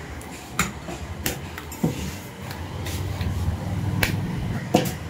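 Cleaver chopping mutton on a wooden butcher's block: about five sharp knocks at uneven intervals, with a pause in the middle.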